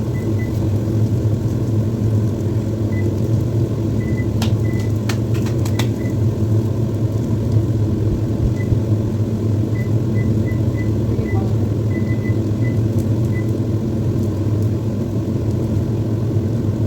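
A steady low mechanical hum from a running appliance or fan. A few sharp clicks or knocks come about four to six seconds in, and faint short high pips are scattered through.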